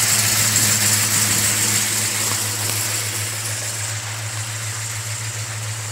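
Bored 428 cubic-inch Ford V8 with headers and Magnaflow mufflers idling steadily, growing slightly fainter.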